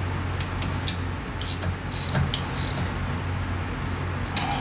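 A hand wrench clinking and clicking against metal fittings at a motorcycle's rear brake linkage: several short, sharp metal clicks, bunched in the first half, over a steady low hum.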